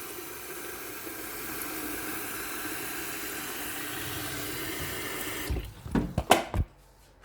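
Tap water running into an electric kettle to fill it. The flow stops about five and a half seconds in, followed by a few sharp knocks and clunks.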